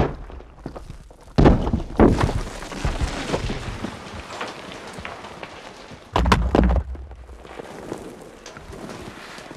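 Landslide: heavy thuds of falling earth and rock about a second and a half in, again half a second later and about six seconds in, with a steady trickle and rattle of small debris between them that slowly thins out.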